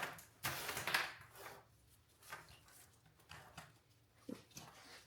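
A cut wire being pulled out through a car wiring harness bundle: a brief rustling scrape about half a second in, then faint scattered rustles and a small tap near the end.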